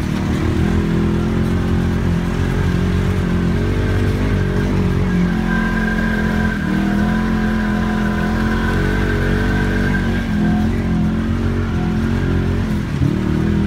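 ATV engine running under throttle, its pitch rising and falling a little as the revs change, with a fainter higher whine over the middle stretch.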